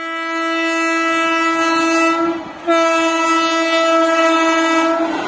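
Indian Railways locomotive horn sounding two long, steady single-note blasts, with a short break about two and a half seconds in.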